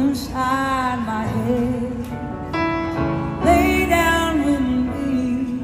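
A woman sings a live lead vocal into a microphone over band accompaniment, holding long notes, with a louder phrase starting about three and a half seconds in.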